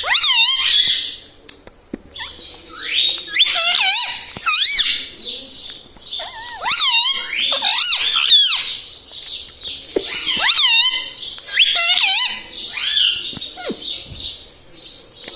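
Indian ringneck parakeet chattering in a string of high-pitched, warbling calls, each phrase a second or so long, with short pauses between them.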